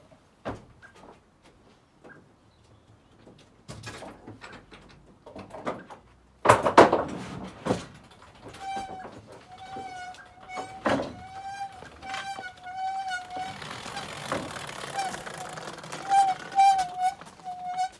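Knocks and thuds of things being moved about in the metal load bay of a van, with one loud bang about six and a half seconds in. From about eight and a half seconds a high, wavering tone sounds over and over in short pieces.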